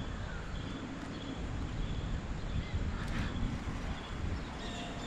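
Wind buffeting the microphone of a head-mounted action camera: a steady, uneven low rumble, with faint short high chirps recurring throughout.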